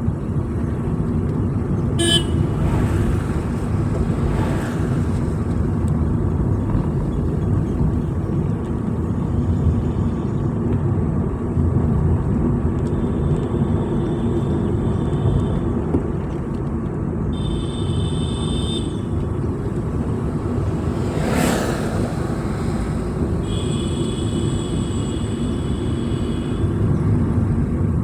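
Vehicle driving on a road: steady engine and road rumble. Three high steady tones come over it, about halfway through, a little later, and a longer one of about three seconds near the end.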